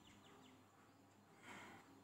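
Near silence: faint room tone, with one brief soft rustle about one and a half seconds in.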